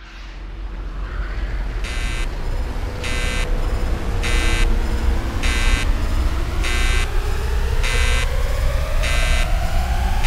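Machinery spinning up: a heavy low rumble with a loud hiss that pulses about once a second. From about six seconds in, a whine rises steadily in pitch.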